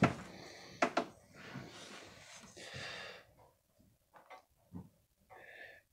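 A chainsaw being handled on a workbench: a sharp knock at the start and two more close together about a second in, then soft rubbing and a few small ticks.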